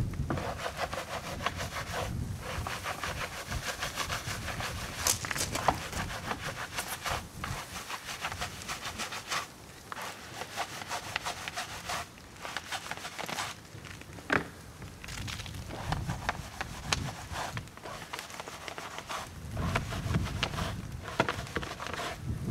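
A bristle wheel brush scrubbing a foam-covered alloy wheel: rapid back-and-forth rubbing strokes between the spokes, with a few sharper clicks here and there.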